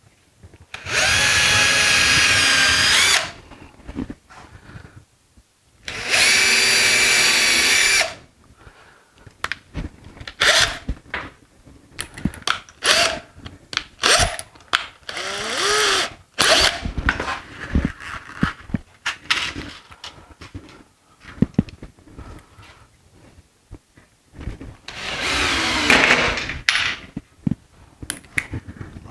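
Power drill boring holes in wooden seat slats: two steady runs of about two seconds each, then a stretch of short knocks and clicks, and another drill run near the end.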